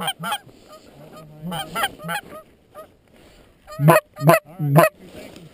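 Geese honking: short calls in small groups, with the loudest three close together about four seconds in.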